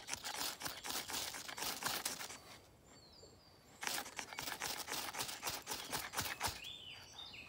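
A 1075 carbon steel knife's ninety-degree spine is scraped fast and repeatedly down a ferro rod to throw sparks onto wood shavings, a rapid run of rasping scrapes. It stops about two and a half seconds in and starts again about a second later. A bird chirps in the pause and again near the end.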